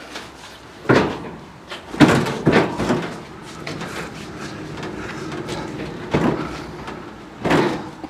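Small cheap-wheeled dolly carrying a heavy air-conditioner condenser, rolling over concrete: a steady rumble from the wheels, broken by several knocks and clunks, the loudest about one, two and seven and a half seconds in.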